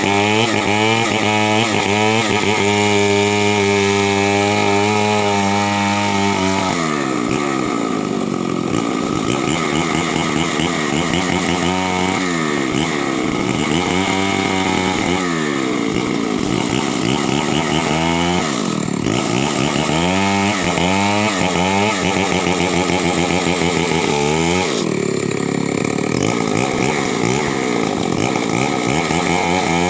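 Chainsaw engine running, steady at a lower speed for the first several seconds, then revved high and cutting wood, its pitch repeatedly sagging under load and climbing again. It drops back to a steadier lower speed near the end.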